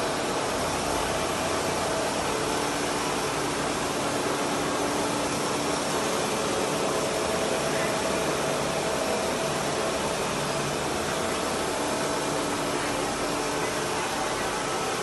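Computerized single-needle quilting machine running as it stitches a comforter: a steady whirring machine noise with a faint hum.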